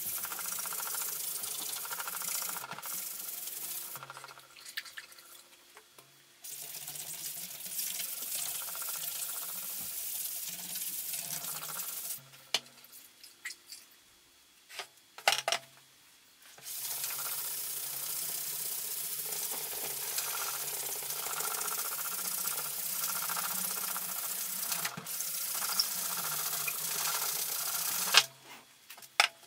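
Wet sponge scrubbing over a silk-screen mesh, washing the water-soluble drawing fluid (touche) out of the filler-coated screen so the image opens up. The rubbing comes in three long spells broken by two pauses, with a few light knocks in the middle pause and one sharp knock near the end.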